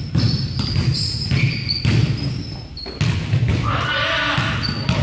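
Basketball being dribbled on a hardwood gym floor, with irregular bouncing thuds, and short high squeaks of sneakers on the wood as the players drive and cut.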